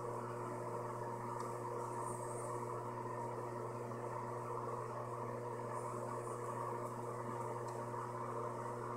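Steady low machine hum with a few fixed tones, unchanging throughout, and a faint high chirp heard twice.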